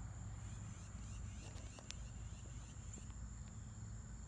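Quiet outdoor background: a steady high-pitched insect trill over a low hum, with a faint click about two seconds in.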